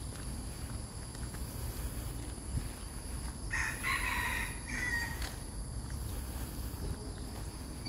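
A rooster crowing once, about halfway through, one call of about a second and a half.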